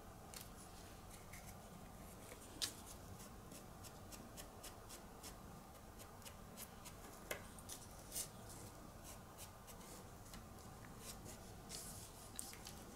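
Faint, quick scratchy strokes of a foam brush spreading decoupage over a glitter-coated acrylic keychain blank, with a few soft taps.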